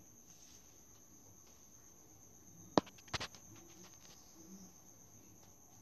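Quiet room with a steady high-pitched whine. A sharp click comes a little under three seconds in, followed at once by a quick run of fainter clicks.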